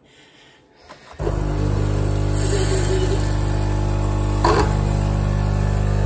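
Nescafé Dolce Gusto capsule coffee machine's pump starting about a second in and running with a steady hum, pushing a water-and-vinegar descaling solution through the machine. A brief knock about halfway through.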